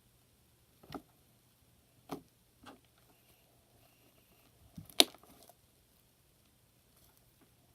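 Slime being handled with shaving cream: a few short, separate squelches and taps, the loudest a sharp click about five seconds in.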